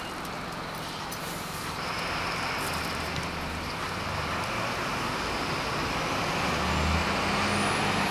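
Steady rumble and hiss of a motor vehicle's engine and road noise, slowly getting louder.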